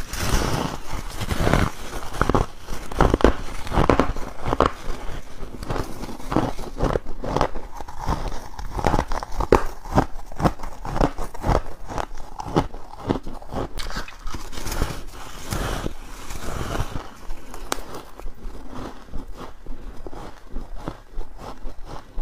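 Bites into a chunk of squeaky freezer frost and the chewing that follows: a quick run of crunching crackles, thinning out near the end.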